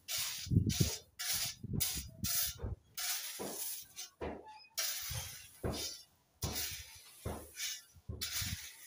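Small hand trowel scraping and spreading loose crushed gravel, a steady series of short crunching scrapes, about one or two a second.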